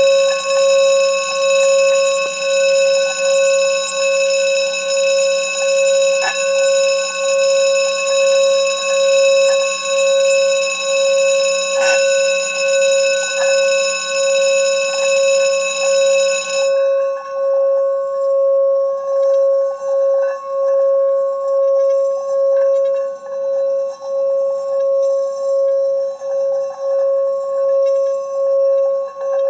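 A steady bell-like ringing tone pulsing about three times every two seconds. About halfway through, its higher overtones and a low hum drop away and only the plain tone keeps pulsing.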